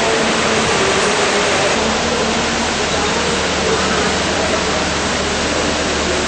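Loud, steady rushing noise, even and without rhythm, with a low hum joining about two seconds in.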